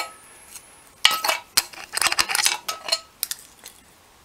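Light metallic clinks and scrapes of a small steel tool working the loose needle rollers (pins) out of a bearing down inside an OMC Cobra sterndrive lower-unit housing. The clinks come in a cluster from about a second in to past three seconds, then die away.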